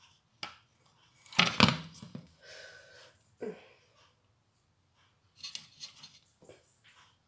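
Metal clinks, knocks and scrapes of a hand tool working on a stick vacuum's motor, with a louder clattering knock about a second and a half in and scattered small clicks after it.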